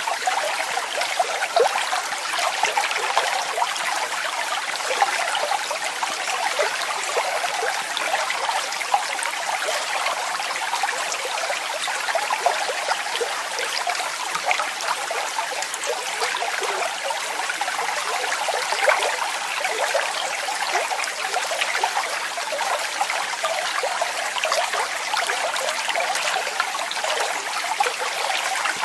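Falling and splashing water, a steady rush with fine splashes throughout.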